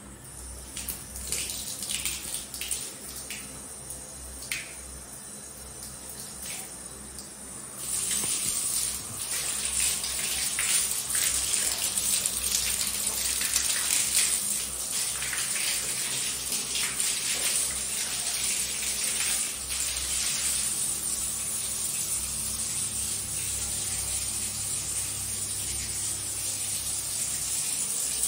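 Shower running, its spray hissing steadily onto a tiled floor, coming on about eight seconds in. Before that, scattered light knocks and taps.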